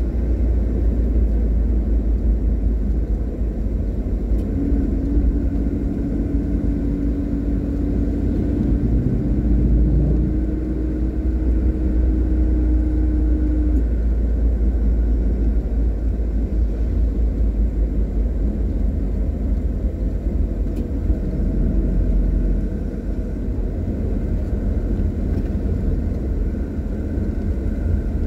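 A car driving along a road, heard from inside the cabin: a steady low rumble of engine and tyres. A humming tone rises slightly in pitch from about five seconds in and stops about fourteen seconds in.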